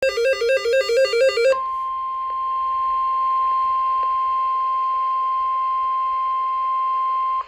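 Emergency alert broadcast signal. It opens with about a second and a half of the warbling digital SAME header data burst, then a single steady 1050 Hz weather-radio alarm tone holds for about six seconds and cuts off suddenly. The signal marks the start of a tornado warning.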